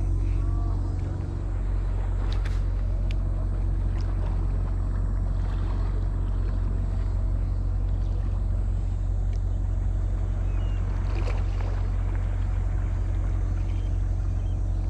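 Steady low engine drone, likely a boat motor running, with a few light clicks over it.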